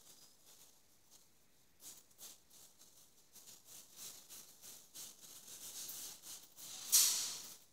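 Quick repeated scraping strokes, a few a second, of a butcher's knife working over the skin of a hanging pig carcass, with one longer, louder hissing scrape near the end.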